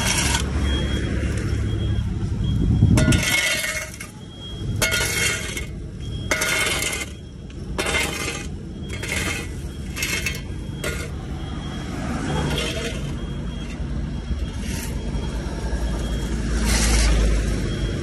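Steel shovels scraping across pavement and scooping loose asphalt mix, a string of short gritty scrapes with stony clinks, coming every second or so and thinning out toward the end. A low, steady engine hum from road machinery runs underneath.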